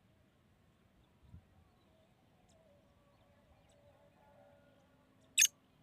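Mostly quiet, then near the end a single short, loud, harsh call note from a black francolin.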